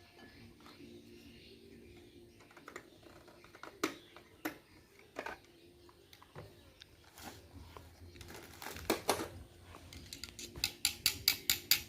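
Utensil clicking against a mixing bowl of cake batter: a few scattered knocks, then a steady run of quick regular clicks, about four a second, starting near the end as the batter is worked by hand.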